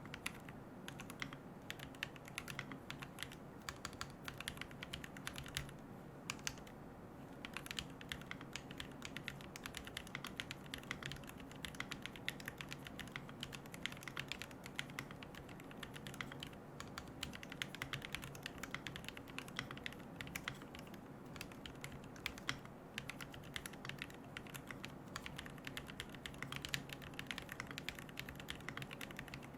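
Continuous typing on a QK75N mechanical keyboard fitted with Gateron Moon Landing linear switches, MilkyWay Poker keycaps and a carbon plate with no foam: a steady stream of keystroke clacks, thinning out briefly about six seconds in.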